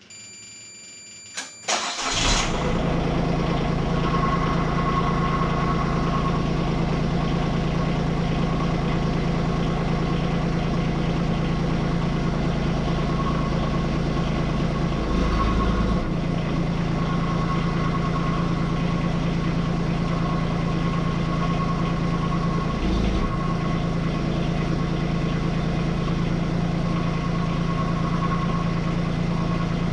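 Kubota U10-3 mini excavator's small diesel engine being started: a steady warning tone, a click, a short crank, then it catches about two seconds in and runs steadily. The engine note changes briefly twice, around the middle and two-thirds of the way through.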